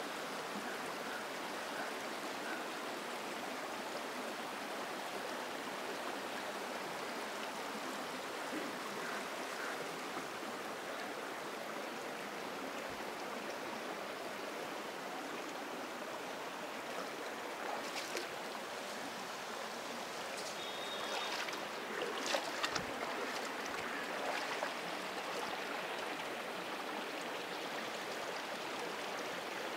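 Shalmala River water flowing steadily, an even rushing. A few faint clicks and knocks come through between about 18 and 25 seconds in.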